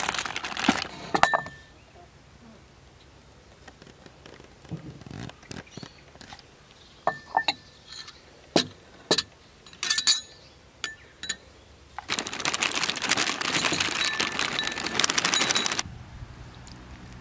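A spoon and ceramic bowl clinking on a wooden slatted table, then a few scattered knocks. About twelve seconds in, dry mini shredded-wheat cereal squares are poured into the bowl with a dense rattle lasting about four seconds, followed by a quieter pour of milk near the end.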